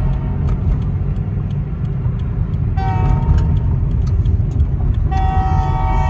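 Train horn sounding over the steady rumble of a car's engine and tyres heard from inside the cabin: a short blast about three seconds in, then a long blast starting near the end.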